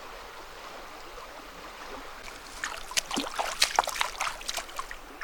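Steady running water of a stream, then from about two seconds in a quick run of short, sharp splashes and clicks.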